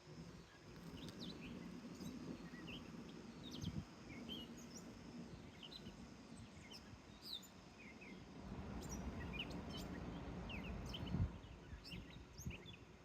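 Birds chirping in many short, quick calls over a low background rumble, with one loud low thump about eleven seconds in.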